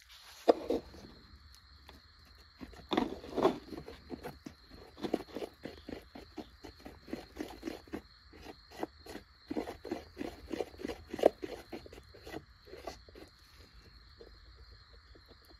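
Wooden stir stick scraping and smearing a two-part paste against a plastic lid, in quick, uneven strokes about two or three a second as the black and white parts are mixed to grey. A steady high-pitched whine runs underneath.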